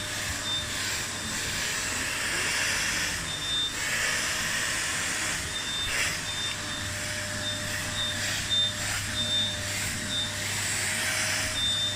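Vacuum cleaner running steadily, an even motor hum and airflow hiss that swells and eases now and then, with a faint high whistle coming and going.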